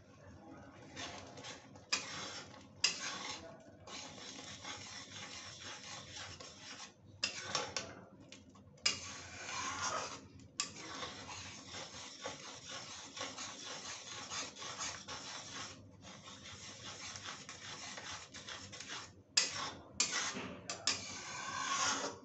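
Metal spatula stirring thick chana dal in a kadhai, scraping against the pan in repeated rasping strokes.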